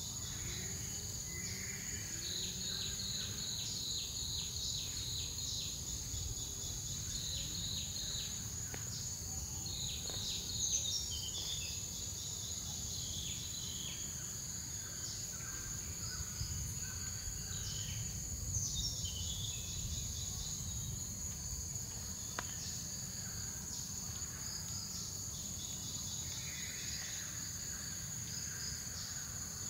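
Tropical forest ambience: a steady high-pitched insect drone with runs of fast, pulsing insect chirps, over a low steady rumble. Twice, about a third and two thirds of the way in, a bird gives a short falling call.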